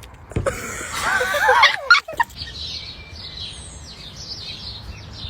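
A bird calling: one loud, wavering call about half a second in, lasting just over a second, followed by a run of quick, faint, high chirps.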